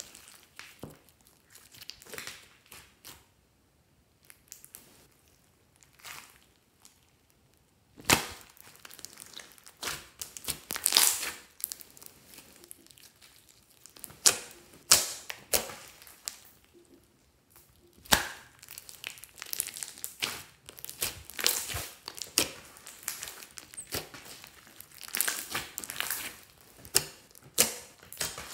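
Clear slime being stretched, folded and pressed by hand, giving irregular sticky squelches and crackling pops of trapped air. The pops are sparse for the first several seconds, then come denser and louder from about eight seconds in.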